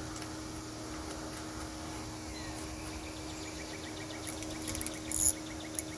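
Light metallic clicks and clinks of hand tools and new mounting hardware, with a quick burst of clinking near the end. A faint run of rapid ticks comes in partway through, and a steady low hum runs underneath.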